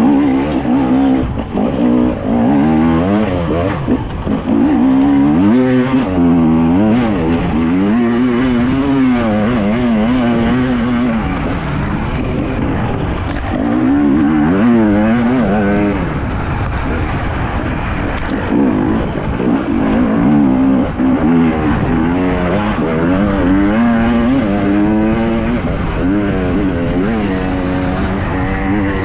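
Two-stroke enduro motorcycle engine heard close up from the rider's position, its pitch rising and falling over and over as the throttle is opened and closed along the trail.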